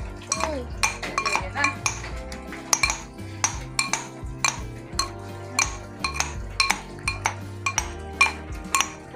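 Steel spoon clinking and scraping against the inside of a small steel cup as food is stirred and mashed in it: sharp, ringing metallic clinks at an irregular pace of about two or three a second. Background music with low held notes plays underneath.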